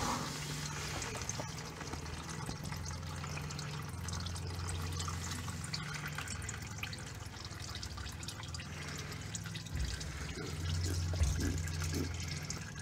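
Warm used engine oil draining from the open drain-plug hole of a 2009 Ford Taurus oil pan, running in a thin steady stream and splashing into a drain pan below.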